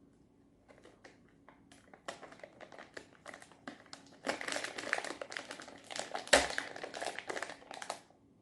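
Crinkly wrapping around a durian being pulled open: a run of crackles and rustles, with one sharper knock about six seconds in.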